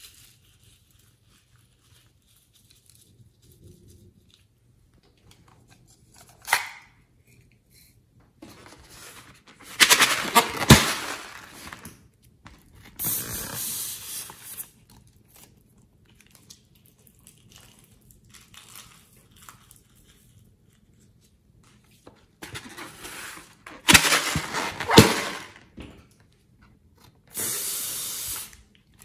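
Filled rubber balloons being handled and snipped open with scissors: a few rough, crinkly bursts of a second or two each, with quiet in between. The two loudest come about ten seconds in and again about twenty-four seconds in.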